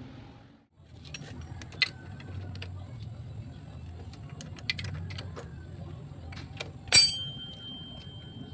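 Small metallic clicks and clinks of tools and metal parts being handled on a motorcycle engine's clutch cover, with one loud metal clank about seven seconds in that rings on for over a second. A low steady hum runs underneath.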